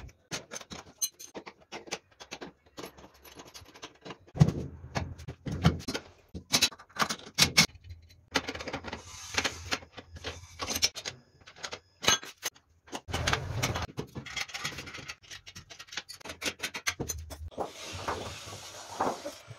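Hand tools working on a steel tube frame: spanners and bolts clinking, knocking and scraping in a quick, irregular run of sharp metallic clicks and knocks while a rear axle and engine are bolted in. Near the end comes a steadier scraping hiss.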